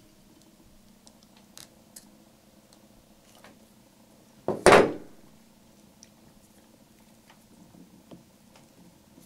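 Faint clicks and ticks of round-nose pliers and coiled wire being handled as a small wire eye is worked, with one loud, short noise about halfway through.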